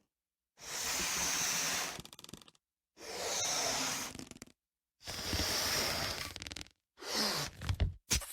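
Four short hissing swooshes, each about a second and a half long, with dead silence between them and each cut off abruptly.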